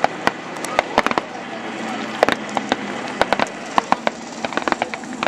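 Scattered blank-fire gunshots from rifles and machine guns, sharp irregular cracks several a second, some in quick clusters, over a steady hubbub of a large crowd.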